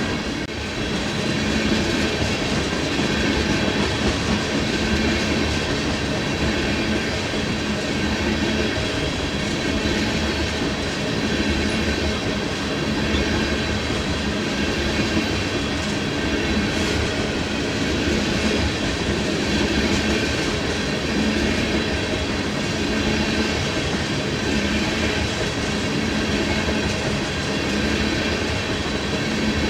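Freight train of empty tank cars rolling steadily past: a continuous rumble and clatter of steel wheels on the rails.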